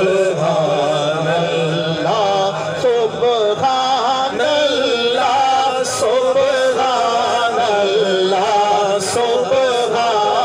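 A man sings a naat, an Urdu/Punjabi devotional poem in praise of the Prophet, into a microphone. He draws out long, ornamented notes that waver and bend in pitch.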